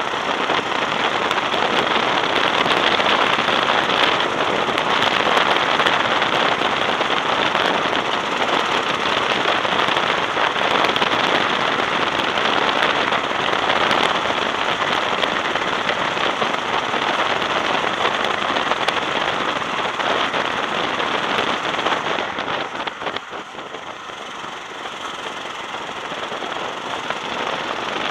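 Go-kart engine running hard at speed, mixed with wind rush, heard from a camera mounted on the kart. The sound drops off for a moment about three-quarters through, then builds again.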